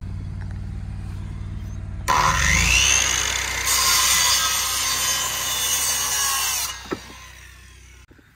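A power saw spins up with a rising whine about two seconds in, cuts through wood for about four seconds, then winds down. A steady engine hum runs underneath and stops near the end.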